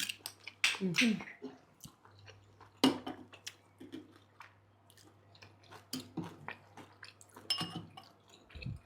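People eating turkey wings: chewing and biting with scattered small clicks and knocks of handling food and plate, over a low steady hum.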